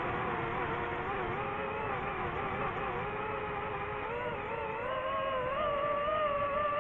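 DJI FPV drone's electric motors and propellers whining, the pitch wavering with throttle and rising about two-thirds of the way through.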